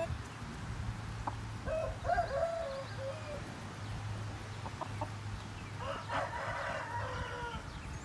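Rooster crowing twice: two drawn-out crows, each about two seconds long, the first about one and a half seconds in and the second about six seconds in.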